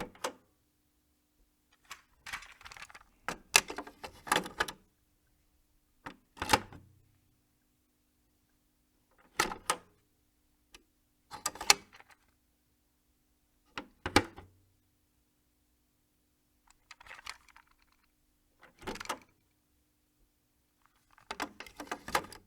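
Cassette player being operated: a tape inserted and the deck's mechanism and buttons worked, a series of sharp plastic clicks and clunks every two to three seconds, some single and some in quick clusters. A faint steady hum sounds between them.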